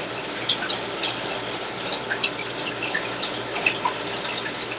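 Aquarium water trickling and splashing, with many small bubbles and drips popping, over a steady low hum.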